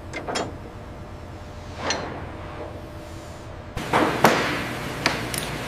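Scattered metallic clicks and clanks of hand tools on metal assembly parts, the loudest clank about four seconds in, over a low steady hum.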